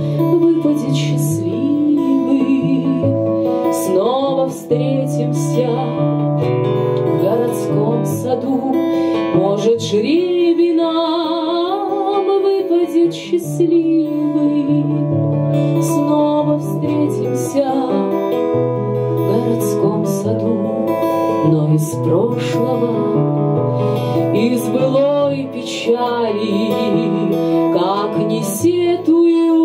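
Live acoustic-band music: a strummed acoustic guitar with piano, and a melody line with vibrato that fits the saxophone, in an instrumental stretch of a song.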